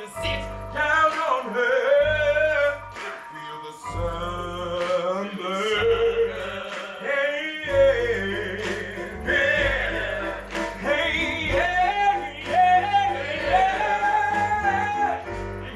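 A male voice sings a chain-gang number from a stage musical over a band, with a heavy, repeated low beat under the melody.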